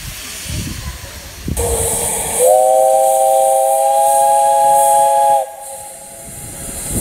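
Steam locomotive whistle on JNR Class 8620 No. 8630: a sudden hiss of steam, then one long blast of about three seconds with several steady notes sounding together, cut off sharply, and steam hissing on after it.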